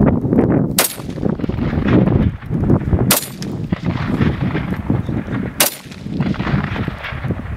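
Zastava M59 SKS semi-automatic rifle in 7.62×39mm firing three single shots, each a sharp crack, roughly two and a half seconds apart. A steady low rumble runs between the shots.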